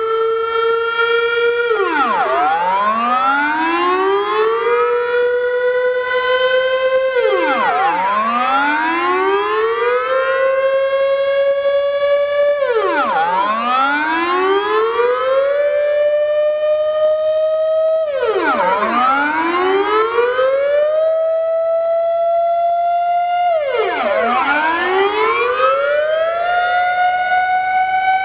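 Dutch civil-defence air-raid siren during a test, sounding its rising-and-falling warning signal. Each cycle the pitch climbs over a couple of seconds, holds, then drops sharply, about once every five and a half seconds, with the siren crackling now and then.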